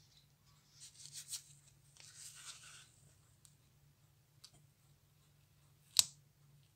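Gloved fingers handling and pressing the metal parts of a small rectangular watch case, with faint scratchy rustling in the first three seconds. Then one sharp click about six seconds in as the part snaps into place under finger pressure.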